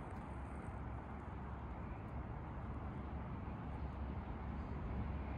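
Low, steady rumble of an approaching diesel freight train, still distant, growing slightly louder near the end.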